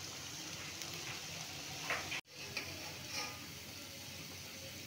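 Pakoras deep-frying in hot oil in a metal karahi, a steady sizzle. It breaks off for an instant about two seconds in, and a metal slotted skimmer knocks lightly against the pan a couple of times.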